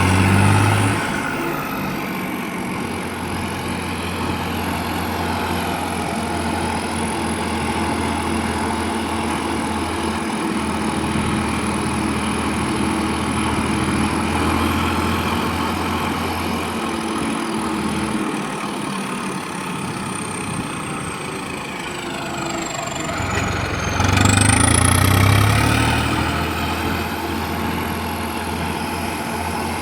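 Tractor diesel engine running steadily, rising in revs and getting louder about twenty-four seconds in before settling back.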